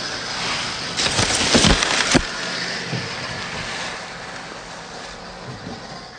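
A scale RC crawler truck driving over dry leaves and twigs on a dirt trail, with a loud stretch of crunching and crackling about a second in that lasts about a second, then fading.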